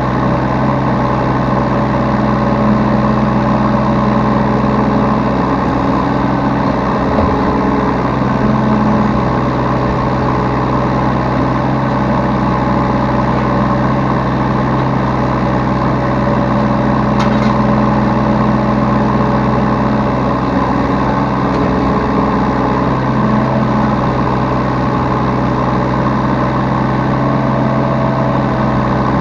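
Yanmar B3 Sigma mini excavator's diesel engine running steadily, with higher tones that swell and fade every few seconds as the machine works.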